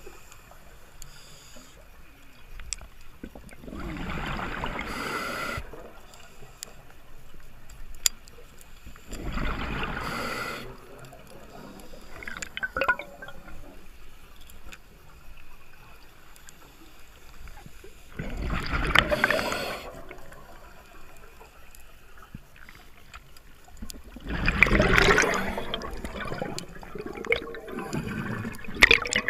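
Scuba regulator exhaling underwater: bubbles rush out in bursts of about a second and a half, four times, with quieter gaps between breaths.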